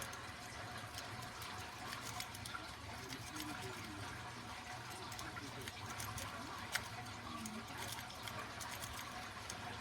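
Lock pick working the pin stack of a Defiant deadbolt cylinder: scattered light metallic clicks and scraping, with one sharper click about seven seconds in, over a faint steady hum.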